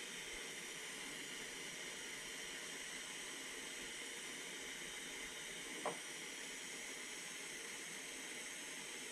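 Steady hiss of a LEXIVON LX-770 butane soldering iron burning gas on its highest setting. A single short click about six seconds in.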